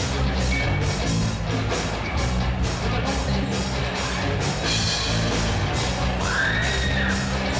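Live rock band playing: distorted electric guitar, bass guitar and drum kit in a steady, loud rock groove, ringing in a large gym.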